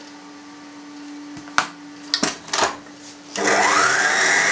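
A few light clicks and knocks as the stand mixer is handled, then about three seconds in the electric stand mixer's motor switches on and runs loudly, its whine rising in pitch as it speeds up. It is kneading a sausage meat emulsion with diced pork back fat.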